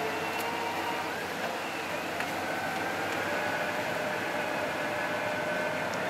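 Fiat-Hitachi D180 crawler bulldozer's diesel engine running steadily as the machine drives forward on its tracks, with high tones that shift in pitch about two seconds in.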